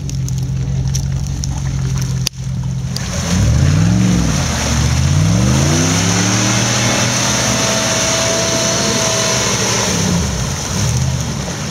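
Off-road 4x4 engine running steadily, then, after a short break, revving up and down several times and holding high revs while the tyres churn through muddy water with a loud hiss of spray.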